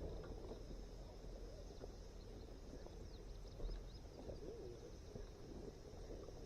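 Quiet outdoor ambience: a steady high-pitched drone, with a few faint bird chirps around the middle and one soft knock about three and a half seconds in.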